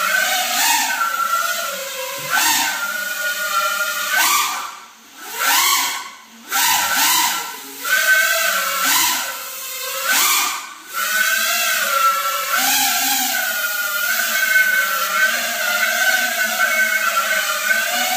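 Small FPV quadcopter's motors and propellers whining, the pitch rising and falling with the throttle. The whine cuts back sharply several times in the first half as the throttle is dropped, then holds a steadier, wavering hover.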